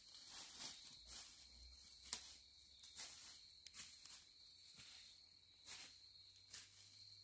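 Footsteps crunching through dry fallen leaves, about two steps a second, faint and growing fainter as the walker moves away.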